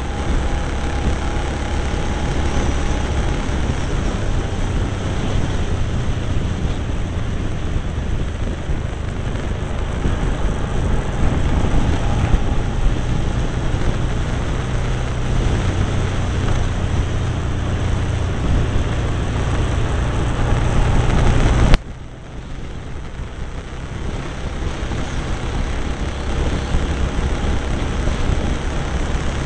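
Cagiva Navigator motorcycle's V-twin engine running at road speed, heard from on board with the rush of travel. About three-quarters of the way through it drops off abruptly after a sharp click, then builds again.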